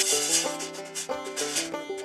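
Plucked banjo music with a loud rasping hiss over it from diamond-pattern metal grate being cut. The hiss stops briefly near the end.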